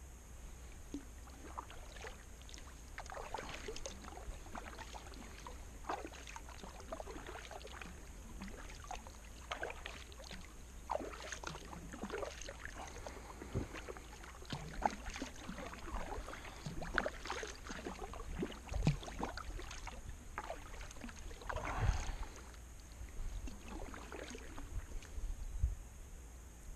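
Kayak paddle strokes through calm water: the blade dips, pulls and drips in an irregular rhythm of small splashes, with a heavier splash and thump near the end.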